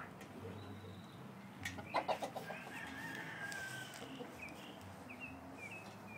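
Chickens clucking: a quick run of clucks about two seconds in, then a drawn-out call, with short high chirps near the end.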